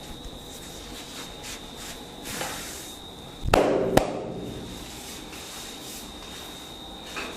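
Two sharp hits about half a second apart, the first louder with a short ringing tail, from hand strikes on the body during a vigorous kung fu-style massage. Quieter rubbing and light taps come before them, over a faint steady high whine.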